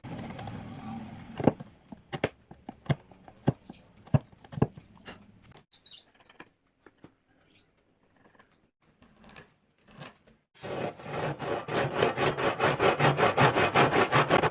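Hand woodworking tools on wood: a run of sharp taps about every half second, then, after a quiet spell, fast, even rasping strokes of about four a second that grow louder.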